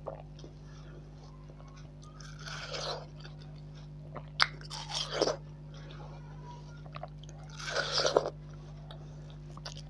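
Person biting into and chewing watermelon slices close to the microphone, about three bites a few seconds apart, over a steady low hum.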